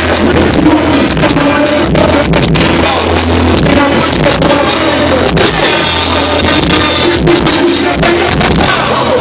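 Live hip-hop played loud through a concert PA: a heavy, booming bass beat with a rapper's voice over it on the microphone.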